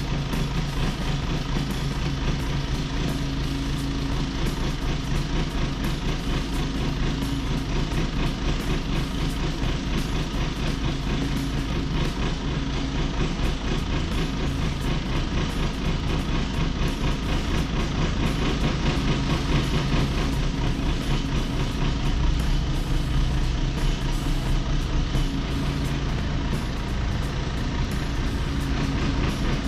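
Diesel engine of a backhoe loader running steadily as it maneuvers.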